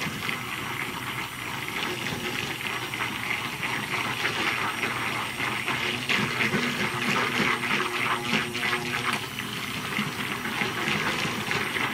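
Handheld stick blender running steadily, submerged in a pitcher of teal cold process soap batter and churning the liquid as it mixes.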